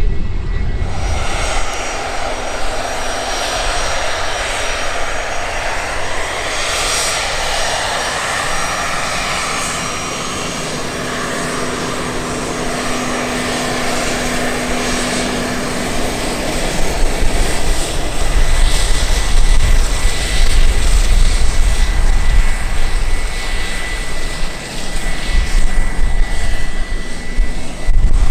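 Twin-engine business jet taxiing with its rear-mounted turbofans at idle: a steady jet whine over a broad rush of engine noise. The low rumble grows louder about halfway through.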